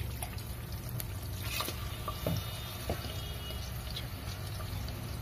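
Tomato pulp being poured and spooned into a pot of cooking masala, wet and liquid, with a few light clicks. A steady low hum runs underneath.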